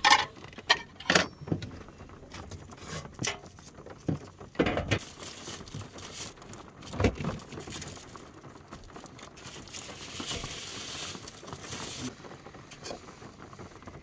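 Clatter of crockery and kitchen items being handled and set down on a wooden worktop and gas stove: several sharp knocks in the first few seconds and another a little after halfway. Plastic food packaging or a wrapper rustles for a couple of seconds near the end.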